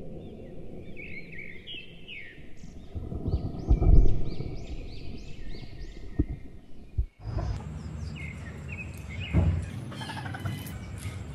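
Small birds chirping in a run of short repeated calls over outdoor background noise. A low rumble swells around four seconds in, and a soft low thump comes a little after nine seconds.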